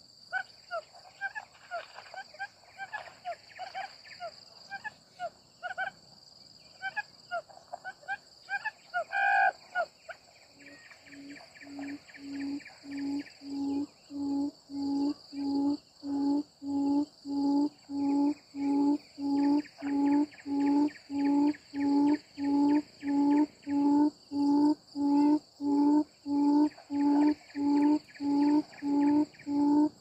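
Quail calling at a net trap: a low hooting note repeated evenly about one and a half times a second, starting about ten seconds in, over a steady high insect drone. Before it, scattered short bird chirps.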